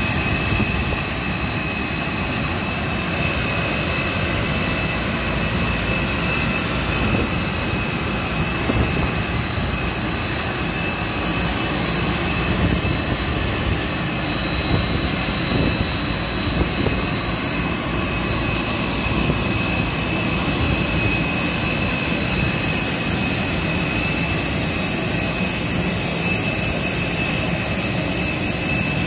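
Steady jet-turbine rush with several high, steady whining tones on top; a higher tone grows stronger for a while in the middle.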